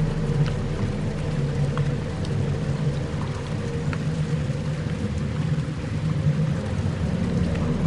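Dark ambient soundscape music: a steady low droning bed of sustained tones with a hiss-like haze above it and a few faint scattered ticks.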